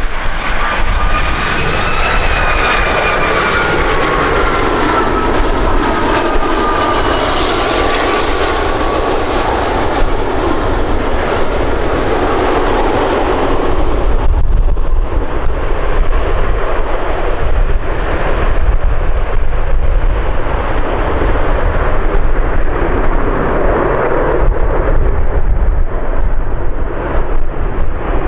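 Boeing 757 freighter's jet engines on landing: a loud whine that glides downward in pitch as it passes on approach, then a rushing rumble from about halfway as it touches down and rolls out along the runway. Wind buffets the microphone throughout.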